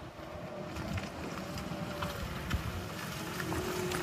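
GMC Hummer EV pickup rolling along a muddy dirt trail toward the microphone: a steady low rumble of its tyres on the dirt, with faint thin tones and a few small clicks.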